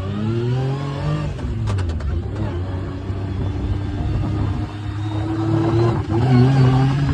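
Off-road vehicle engine revving, its pitch rising and falling as the throttle is worked, with a few sharp clicks about two seconds in.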